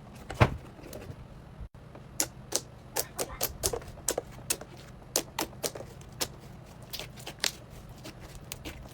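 Slime being pressed and worked by hand, giving irregular crisp clicks and crackles, a few a second, over a faint low hum; the loudest click comes about half a second in.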